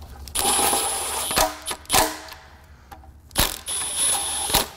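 Cordless impact wrench hammering on an exhaust manifold nut of a Honda V6 in two bursts, one near the start and one about three and a half seconds in, the second with a high motor whine, with a couple of sharp clicks between them.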